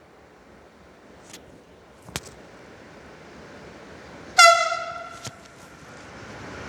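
Siemens Vectron electric locomotive's horn giving one short, high-pitched toot about four seconds in, over a steadily rising train noise; a couple of sharp clicks come before it.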